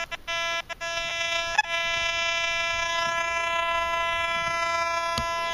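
Metal detector's target tone as its 6x10 double-D search coil sweeps over a buried target: a few short buzzy beeps, then one steady tone held for about four seconds. The target reads near zero on the display, in the iron-to-foil range.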